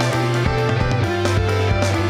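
Background music with guitar, bass and a steady beat.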